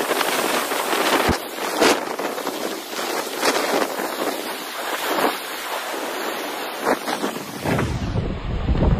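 Rough sea surf: big waves breaking and churning, with repeated crashes of spray. Near the end a low rumble of wind buffeting the microphone joins in.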